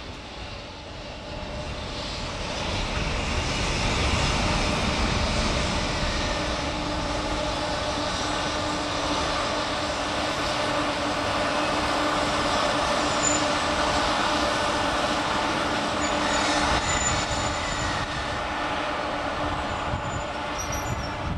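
Freight train with a coupled pair of EF64 electric locomotives rolling past on the rails: a steady rumble of wheels on track with an electric hum, swelling over the first few seconds. A couple of faint, brief high squeals come partway through.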